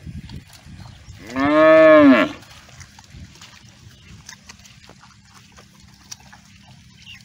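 Young water buffalo lowing once: a single call about a second long, about a second in, whose pitch rises and then falls.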